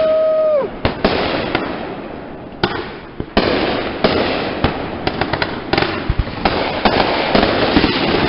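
Fireworks going off in quick succession: many sharp bangs and dense crackling. A short whistle near the start drops in pitch as it cuts off.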